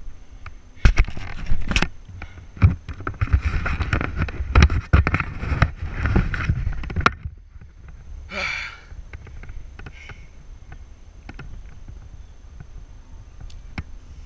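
Rustling, scraping and knocks of a climber's body-mounted camera and limbs against beech bark and leaves, with hard breathing, for about seven seconds, then it cuts off suddenly. About eight seconds in comes a brief vocal sound falling in pitch, followed by faint scattered clicks.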